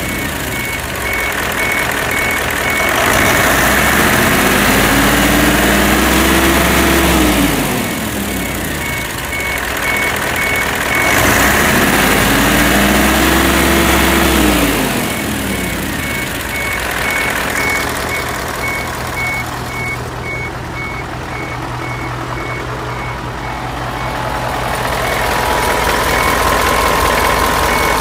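Mitsubishi Fuso 8DC11 V8 diesel engine, revved up and let back down twice in the first half, then idling steadily. A regular high beeping comes and goes over it.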